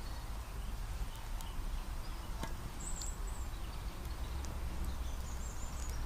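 Wood campfire crackling, with scattered sharp pops, over a steady low rumble; a few short, high bird chirps come in about halfway through and again near the end.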